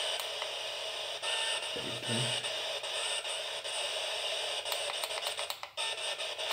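Homemade spirit box, a hacked FM radio scanning upward through the FM band, putting out steady radio static. A short low snatch of sound comes about two seconds in, and a run of clicks near the end.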